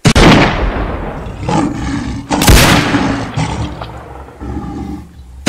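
A lion roaring and growling, starting suddenly, with a loud rifle shot about two and a half seconds in.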